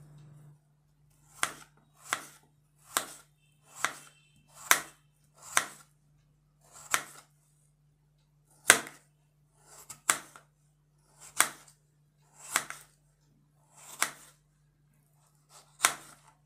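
Kitchen knife slicing through raw peeled potatoes and tapping a plastic cutting board, about thirteen separate cuts. They come less than a second apart at first, then slow to roughly one every second or so.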